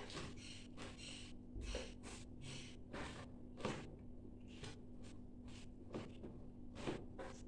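A spoon stirring and tossing shredded vegetables in a plastic container: a run of short scraping, rustling strokes, irregular, one to two a second. A faint steady hum lies underneath.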